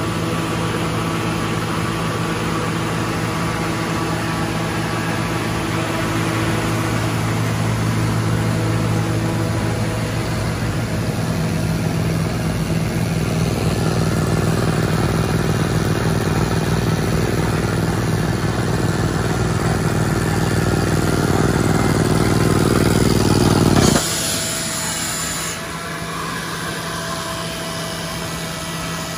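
Atlas Copco XAH 236 portable diesel air compressor running steadily while an Epiroc Airroc D35 pneumatic crawler drill bores into rock, the noise building louder over the middle stretch. About 24 seconds in, the sound drops abruptly with a short burst of hiss, and a quieter steady engine note carries on.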